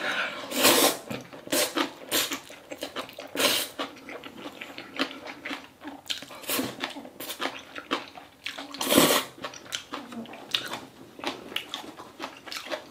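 Wet slurping and chewing of a big mouthful of jjajang ramen noodles wrapped around green onion kimchi, in irregular bursts, with the loudest slurps about a second in, about three and a half seconds in, and about nine seconds in.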